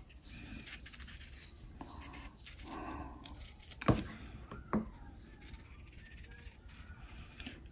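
Small kitchen knife scraping and slicing the skin off a hard green dwarf Cavendish banana, faint and scratchy, with a sharp knock about four seconds in and a smaller one just after.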